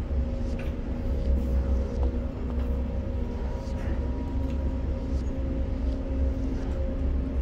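Steady low rumble with a constant electric hum from a container crane's hoist machinery, heard in the operator's cab while the spreader lowers an overheight flat rack onto the ship, with a few faint ticks.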